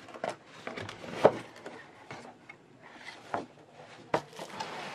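Cardboard shoe box being opened by hand: a string of light knocks and scrapes of cardboard, with one sharper knock about a second in and a soft rustle of paper near the end.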